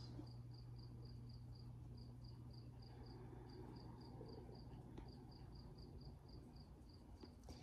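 Faint cricket chirping: short, high, evenly spaced chirps about four a second, in runs broken by brief gaps, over a low steady hum.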